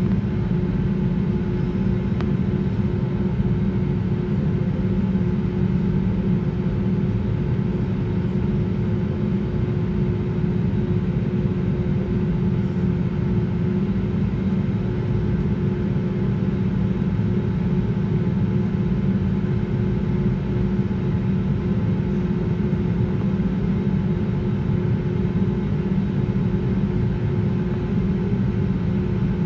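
Cabin noise inside an Airbus A320neo taxiing: the engines running at low power with the air-conditioning, a steady even rumble with a constant low hum.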